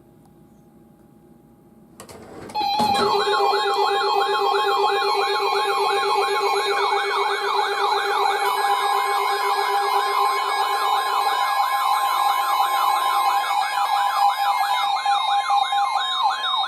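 Weather radio receiver's warning alarm: a loud, fast warbling siren tone rising and falling about three times a second over steady alert tones, starting suddenly about two and a half seconds in after a faint start.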